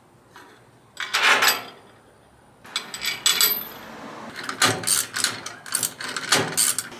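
Hand ratchet wrench clicking in quick, uneven strokes as the bolts of a metal roof-rack case mount are tightened, starting about three seconds in. A short clatter comes about a second in.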